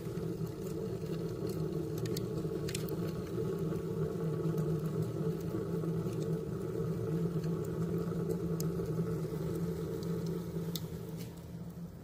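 Homemade upside-down burning wood stove drawing hard: a steady low rumble of the fire and draft in its steel pipe, with a few sharp crackles from the burning wood. The rumble fades near the end.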